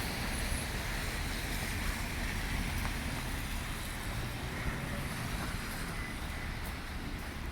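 Steady city traffic noise: a continuous rumble and hiss of passing vehicles on the street.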